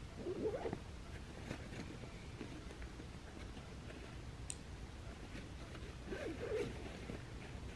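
A zipper being pulled twice, each pull under a second long: once just after the start and again about six seconds later.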